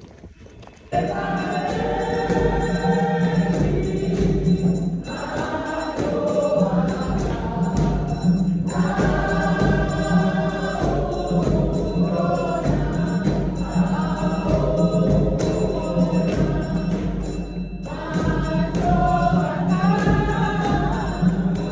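Choir singing with instrumental backing, starting suddenly about a second in.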